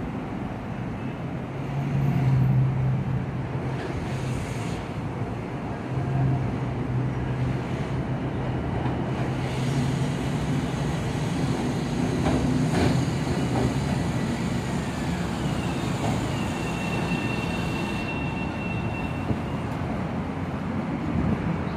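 Long Island Rail Road electric train approaching and running along the platform with a steady rumble and low hum. In the last few seconds a thin high squeal is heard as the train passes.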